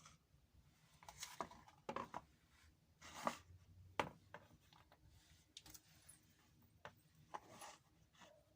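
Faint handling noises: scattered rustles and a few sharp clicks or taps, the sharpest about four seconds in.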